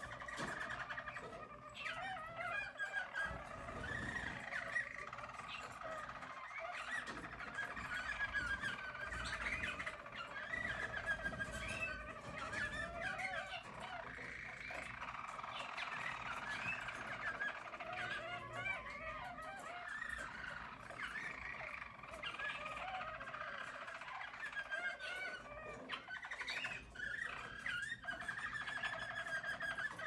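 Harz German Roller canary song: continuous rolling trills that run on without a break, several lines of song overlapping at different pitches.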